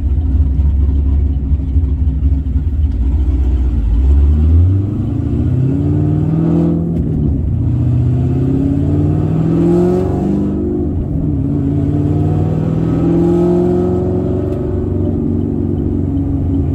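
A 6.2-litre LS3 V8 with a large, high-overlap camshaft, heard from inside the cabin. It starts with a deep low-rpm rumble, then pulls away under throttle with its note rising. The note breaks twice, about seven and ten seconds in, at gear changes of the six-speed manual, then climbs again and levels off.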